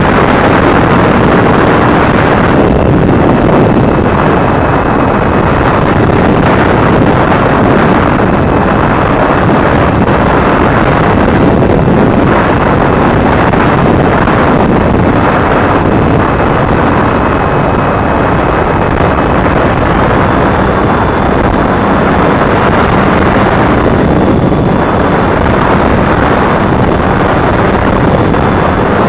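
Onboard recording of a flying FPV drone: its electric motors and propellers make a thin whine that shifts in pitch. The whine sits under heavy, steady wind rush on the camera's microphone.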